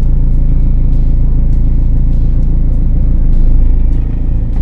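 Renault Duster's engine idling with a steady low rumble, heard from inside the cabin, as the car creeps forward in gear on the clutch alone with no accelerator.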